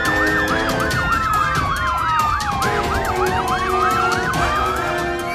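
Electronic toy siren sound: a fast warbling yelp about five times a second over a slower wail that falls and then rises again, with a simple electronic tune of steady notes beneath.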